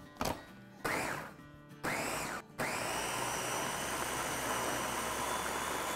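Ninja food chopper's motor pulsed in two short bursts after a click, then run steadily, chopping mango cubes with sugar into a purée.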